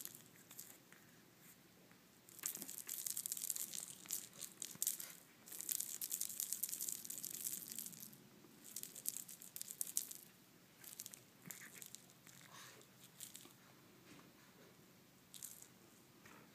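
Cat wand toy with a wooden ball and yarn tassels being jiggled and pawed at by a cat, giving several bursts of crisp, high rattling and rustling with short pauses between, thinning out over the last few seconds.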